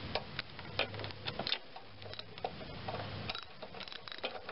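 Light, irregular metallic clicks and taps from a spark plug socket and adapter turned by hand, threading a new spark plug into a small Briggs & Stratton engine's cylinder head.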